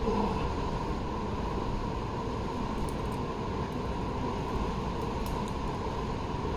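Steady wind rumble on the microphone, with a few faint clicks.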